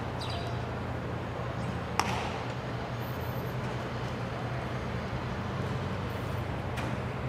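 Steady low background hum, with one sharp knock about two seconds in and a couple of fainter clicks later.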